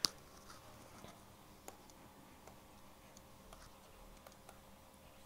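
One sharp click, then faint scattered clicks and taps of a stylus writing on a digital writing tablet.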